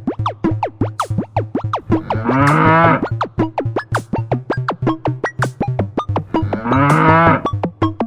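Electronic dance track with a steady bass beat and quick falling synth notes, with a long cow moo cut into the music twice, about two seconds in and again near the end.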